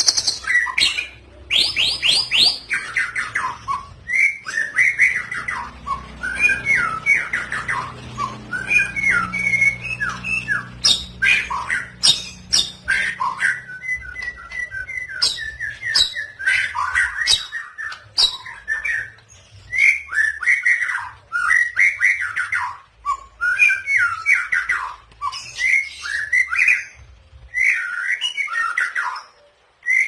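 White-rumped shama (murai batu) singing a continuous run of varied whistled, warbling and chattering phrases, with a fast trill about two seconds in. Its song is filled with mimicked phrases of other birds, given as kapas tembak, canary and cililin.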